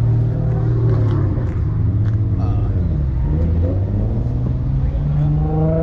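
A car engine running close by: its pitch sinks around the middle, then climbs steadily near the end as the car pulls away and accelerates.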